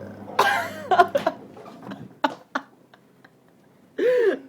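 A person coughing and making throaty vocal noises near the start, over a low steady hum that stops about a second in, then two sharp clicks and another short vocal sound near the end.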